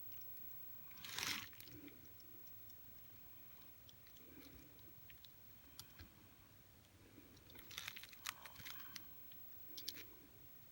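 Faint handling noises: a short rustle about a second in, then scattered small clicks, with a cluster of quick clicks near the end.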